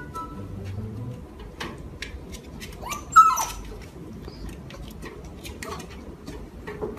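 Golden retriever puppy whimpering: one short, high cry about three seconds in and a fainter one near six seconds. Between the cries there are light clicks and scuffles as it scrambles through the rungs of a metal stool on wooden boards.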